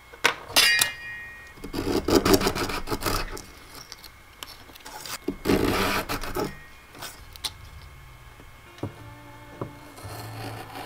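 Vaughan Bear Saw pull saw cutting thin strips of hickory by hand: two short bursts of saw strokes, about two and about five and a half seconds in, with knocks of wood and tool being handled on the bench between them.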